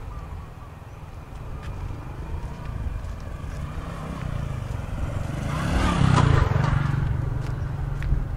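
A motor vehicle approaches and passes close by, loudest about six seconds in, its engine pitch dropping as it goes past.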